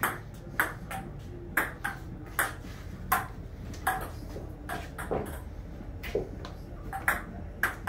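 Table tennis rally: a ping-pong ball clicking sharply off the paddles and the table, about fourteen hits at an uneven pace of roughly one every half second.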